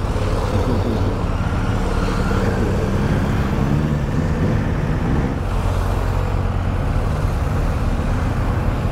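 Motorcycles riding past one after another, their engine notes rising and falling in pitch as each goes by, over a steady low rumble.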